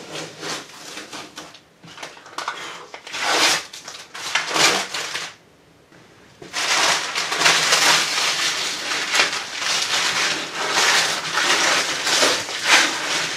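Masking tape and masking paper being peeled off freshly sprayed bodywork and crumpled up: rough tearing and crinkling in bursts, a short pause just after the middle, then near-continuous crinkling.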